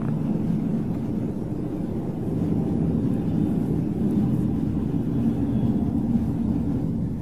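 Steady low rumble of background engine noise, swelling slightly around the middle.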